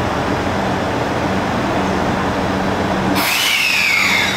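JR Central HC85 hybrid diesel-electric train pulling out, its engine running with a steady hum. About three seconds in, a sudden louder hiss sets in with the whine of the Toshiba VVVF inverter and permanent-magnet traction motors, falling in pitch.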